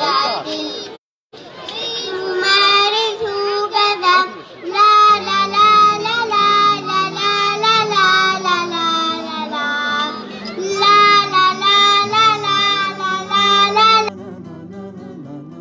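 Children singing in unison over a backing track played through PA loudspeakers. The sound cuts out briefly about a second in. A low accompaniment comes in about five seconds in, and the singing stops near the end, leaving the music playing more quietly.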